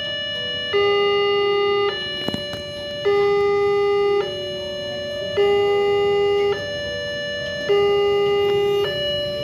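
Railway level-crossing warning alarm: an electronic two-tone signal switching back and forth between a higher and a lower tone about every 1.2 seconds, with the lower tone louder, sounding while the crossing barrier comes down. One sharp click about two seconds in.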